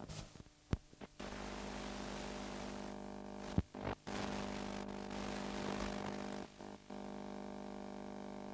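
Steady electrical hum from a worn videotape's sound track. A few sharp clicks come near the start and again midway, and a hiss runs through the middle for about five seconds with brief dropouts.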